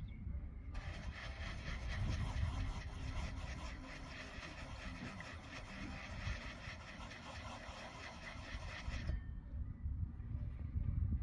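Sulfuric acid with gold precipitate in it boiling hard, a steady crackling hiss that cuts in about a second in and stops abruptly near the end, over a low rumble. The boiling is coarsening the fine gold precipitate into larger lumps.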